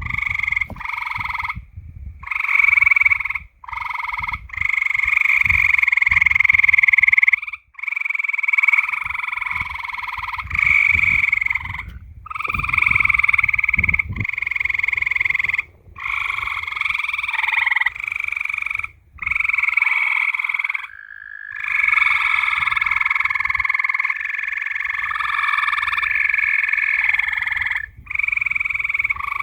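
A chorus of many frogs calling at night, a dense steady trilling that cuts out abruptly for a moment several times.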